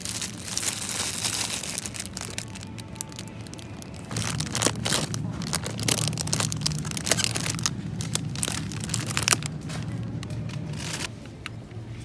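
Plastic produce bags and noodle packaging crinkling and crackling as they are handled: a short bout at the start, then a longer, louder one through the middle that dies down near the end.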